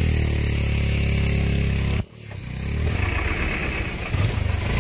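Heavy vehicle's engine running steadily close by. About two seconds in the sound breaks off sharply, then returns as a rougher, noisier engine sound as the vehicle passes right beside.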